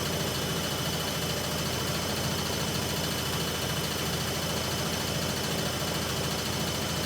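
Hoover Ecologic Computer washing machine on a spin-only cycle, its drum spinning steadily at speed: a steady motor whine over a low hum that pulses evenly.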